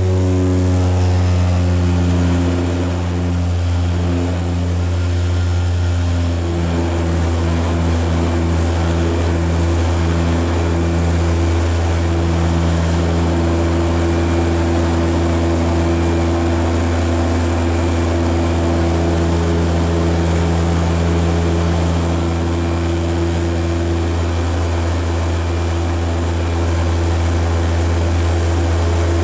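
De Havilland Canada DHC-6-300 Twin Otter's twin Pratt & Whitney PT6A turboprops and propellers in flight, heard inside the cabin as a loud, steady, deep drone. For several seconds partway through it takes on a slow, regular pulsing.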